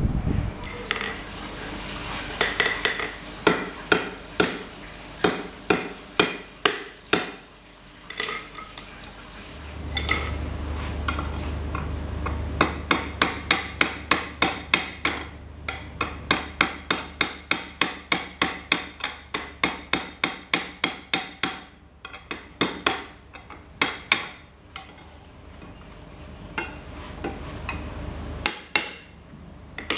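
Hand hammer blows on a red-hot steel piece at the anvil: runs of quick, sharp strikes about three a second, with pauses between runs. A steady low hum sits underneath for most of the second half.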